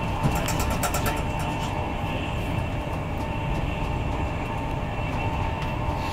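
Inside an Intercity 225 Mark 4 coach running at speed: a steady low rumble of wheels on rail with a faint steady whine. About a second in comes a short cluster of clicks and rattles.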